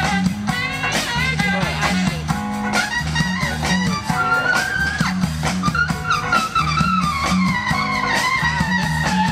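A live band playing guitar-led music over a steady, repeating bass line.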